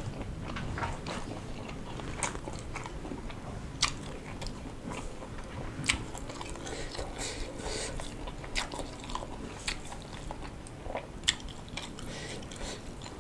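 A person chewing and biting a mouthful of small salir fish, soft bones included, with rice: irregular sharp crunchy clicks and smacks, a few louder ones standing out.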